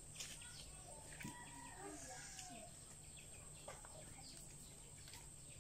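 Faint clucking calls of chickens, with a few short bird chirps.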